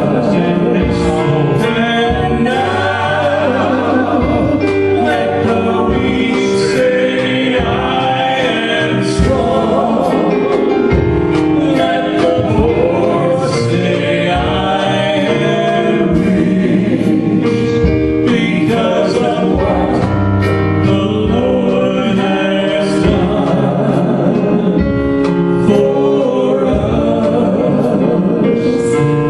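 Gospel worship music with group singing over a steady beat with regular cymbal strikes.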